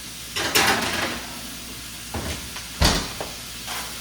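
Oven door opened and a baking pan slid onto the rack, a scraping rush about half a second in, then the door shut with a thump near the end. A steady sizzle of frying sausage runs underneath.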